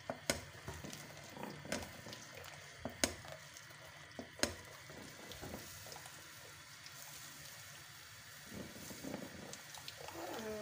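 Milk with beaten egg bubbling at a gentle boil in a steel saucepan. A steel ladle stirs it and clinks sharply against the pan four times in the first half.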